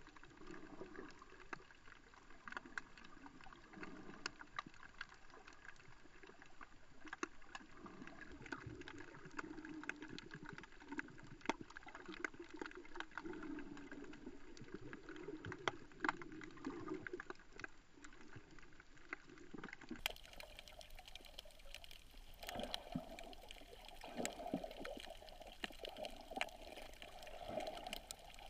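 Water sounds recorded underwater through a GoPro housing: a muffled sloshing and gurgling with many scattered sharp clicks. The sound changes about two-thirds of the way through, becoming more gurgling.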